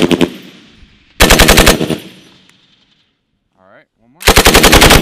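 M240L 7.62 mm belt-fed machine gun firing short bursts of rapid shots, each burst followed by an echo fading out. One burst ends just as the sound begins, another comes about a second in, and a longer one near the end.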